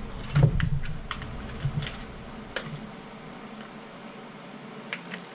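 Scattered light clicks and taps of things being handled, several in the first few seconds and a couple near the end, over quiet room tone.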